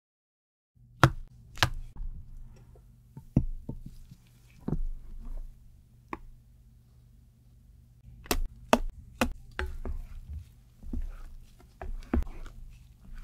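Sharp taps of a spatula knocking against the mixing bowl, several in quick succession around the middle, between soft wet swishes of stiff meringue being scooped and folded into matcha batter.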